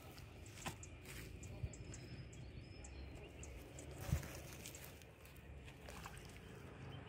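Faint outdoor background noise with a low rumble and a few soft knocks, the loudest about four seconds in.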